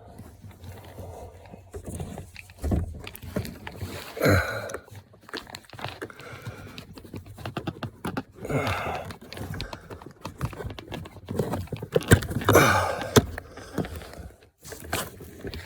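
A man grunting and breathing hard with effort, in short falling grunts, amid scattered small clicks and knocks as he pries the upper end clip of an emergency-brake pedal gas strut off its ball socket.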